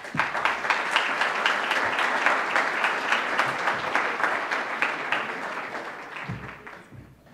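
Audience applauding: many hands clapping at once, steady for about six seconds, then dying away near the end.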